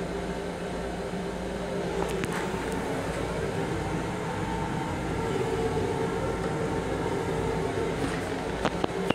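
Steady hum and rumble of a Long Island Rail Road M7 railcar heard from inside its small restroom, with a few light clicks near the end.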